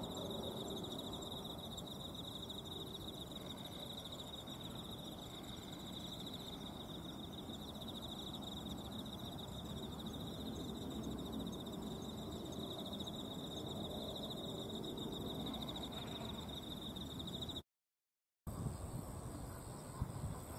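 Insects chirring in grass: one steady, finely pulsing high trill that breaks off near the end, followed by a different, higher-pitched trill.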